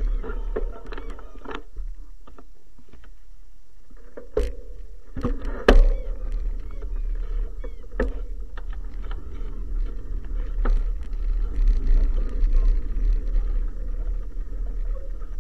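Wind buffeting a bike-mounted camera's microphone as a steady low rumble, over the rolling rattle of a bicycle on a lane. Sharp knocks from bumps come through at intervals, the loudest about six seconds in.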